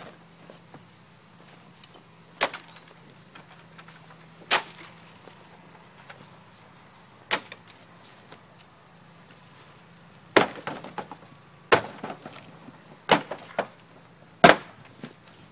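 A few sharp knocks spaced seconds apart, then, from about ten seconds in, a quick run of heavy whacks as a wooden stool is brought down on a carved pumpkin, smashing it apart.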